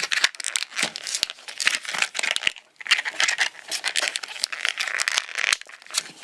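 Retail knife packaging being pulled, crinkled and torn open by hand, a dense irregular crackle with sharp clicks and a short pause about two and a half seconds in.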